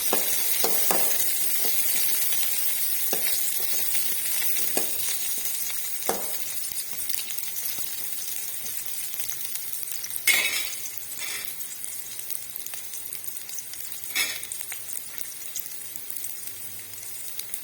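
Shallots, garlic and a dried red chilli sizzling in hot coconut oil in a pan as they sauté. A utensil knocks and scrapes against the pan now and then as they are stirred, loudest about ten seconds in, and the sizzle slowly dies down.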